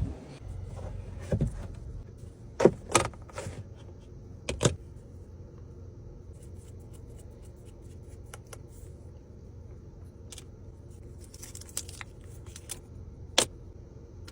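A handful of sharp clicks and knocks as things are handled, the loudest a few seconds in and one near the end, over a steady low hum inside a vehicle.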